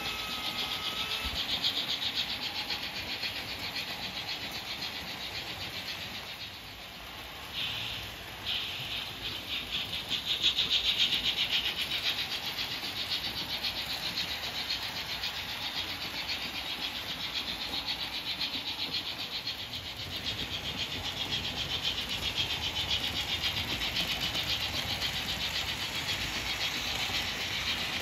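Märklin H0 model trains running on the layout tracks: a steady rolling rattle of metal wheels on rail, louder for a couple of seconds about ten seconds in.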